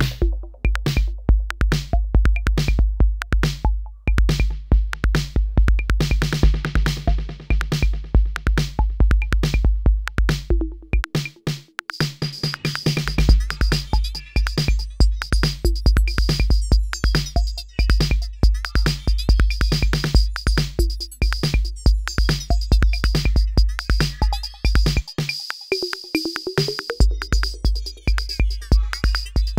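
Roland TR-6S drum machine playing a factory pattern: a steady run of deep kick drum hits with snare, hi-hats and other percussion over it. The kick drops out twice for about two seconds, near the middle and near the end, and a thin steady high tone comes in near the middle and holds.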